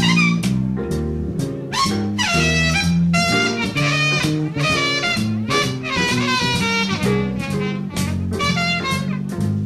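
Live big band jazz: saxophones and brass play phrases with slides in pitch over electric bass and drum kit, keeping a steady swing beat.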